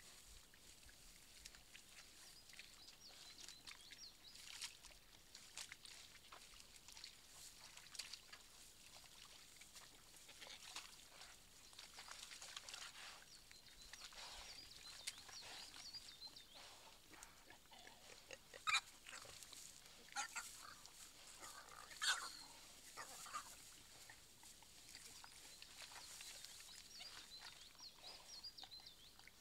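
Wild boar sow and striped piglets grunting faintly as they root and feed in the mud, with soft rustling throughout. A few short, louder sounds come about two-thirds of the way through.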